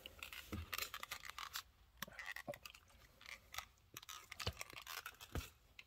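Faint, irregular rubbing and light clicks of hands and a microfiber towel handling and wiping a car's interior trim.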